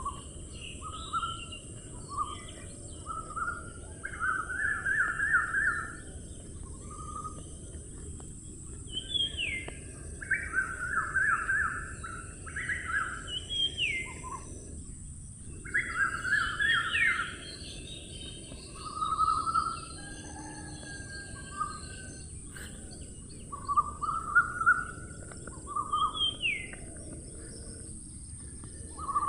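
A bird calling in short phrases every few seconds: quick runs of repeated notes and rising whistled glides, over a steady high hiss.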